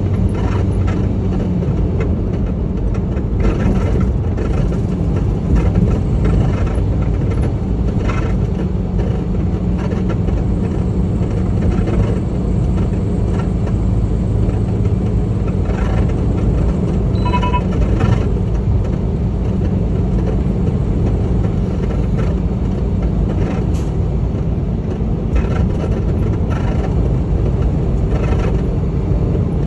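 Semi truck driving at a steady speed, heard from inside the cab: a constant low engine drone mixed with road noise. A short electronic beep sounds once, a little past halfway.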